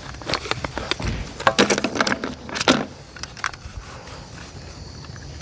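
Clattering knocks and clinks of utensils and other objects being picked up and set down as a camp table is cleared, busiest in the first few seconds.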